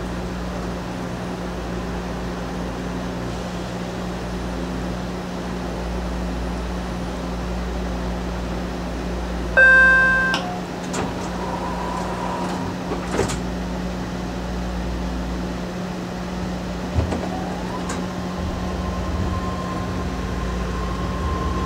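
BART train car running on the track, heard from inside: a steady hum and low rumble, with a short, loud ringing tone about ten seconds in and a few sharp clicks later.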